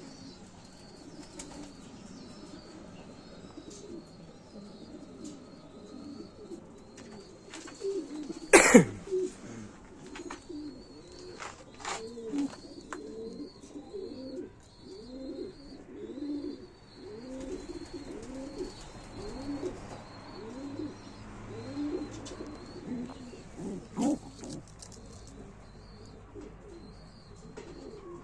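Domestic pigeons cooing in a long run of repeated low calls, with a loud sharp knock just before they start and another near the end. A faint high chirp repeats steadily throughout.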